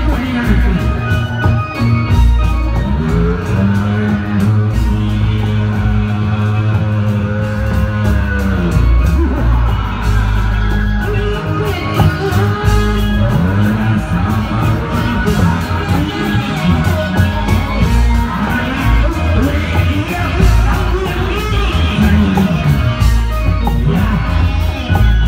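Loud music accompanying a Reog Indramayu street performance: steady percussion under a melody in long, sliding held notes.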